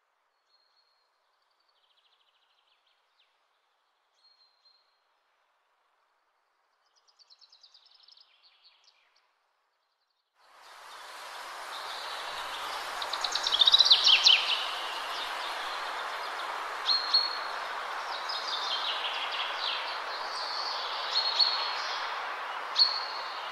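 Birds chirping and trilling over a steady rushing noise that fades in about ten seconds in, with the loudest burst of calls soon after; before that only a few faint chirps.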